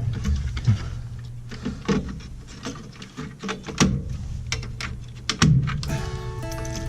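Scattered clicks and knocks of hand work on a furnace during a control board swap, over a steady low hum, with two sharper knocks in the middle. Background music comes in near the end.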